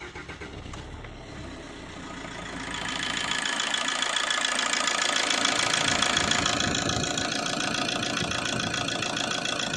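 2007 Suzuki Swift's 1.3-litre common-rail diesel engine turning over for about two seconds, then catching and running with a fast diesel clatter. The mechanic puts the running down to rail pressure held too high by a rusted, faulty pressure regulator valve (DRV).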